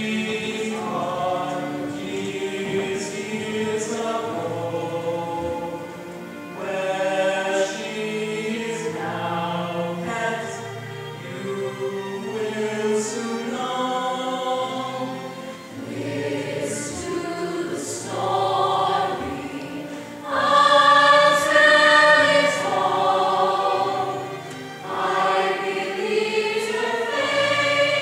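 Mixed voices singing together as a choir in long held phrases with short breaths between them, growing louder about two-thirds of the way through.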